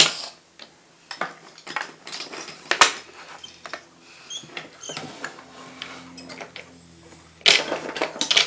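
Toy train set pieces clicking and clattering as they are handled, with a sharp knock about three seconds in and a louder run of clatter near the end.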